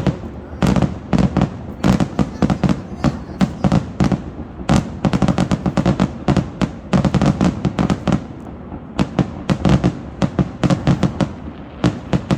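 Aerial fireworks shells bursting in a rapid barrage, many loud bangs a second overlapping without let-up, as in a display's finale.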